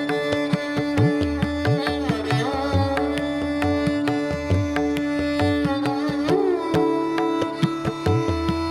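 Background Indian classical-style instrumental music: a plucked string melody with sliding pitch bends over a steady drone, with hand-drum strokes keeping a beat.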